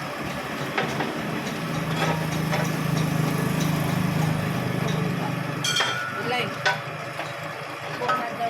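Scattered metallic knocks and clinks of tool work on a car's front suspension, over a steady low engine-like hum that swells up about a second and a half in and fades away after about five seconds.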